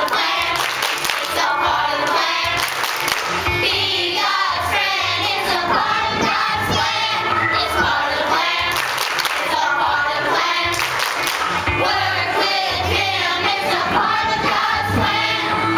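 Children's choir singing an upbeat action song together over instrumental accompaniment with a steady bass line, with hand claps among the singing.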